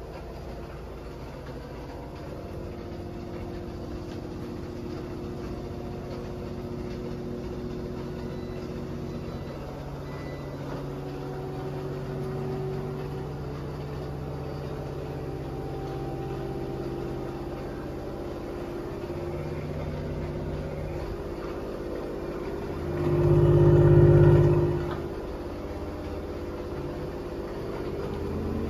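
LG WM3400CW front-load washer in an intermittent spin, its direct-drive motor and drum running with a hum whose tones shift slowly as the drum speed changes. Near the end a much louder low hum swells for about two seconds, then drops back.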